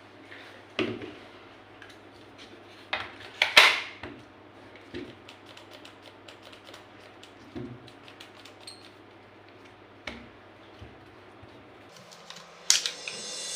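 Handling of an impact wrench and its small parts: scattered clicks, taps and light metallic clinks at irregular intervals. The loudest knock comes about three and a half seconds in, and a quick cluster of clicks comes near the end.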